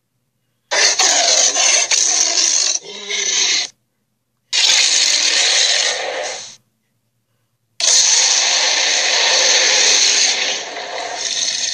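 Three allosaurus roar sound effects in a row, each a loud, harsh, noisy roar lasting two to four seconds, separated by short silences.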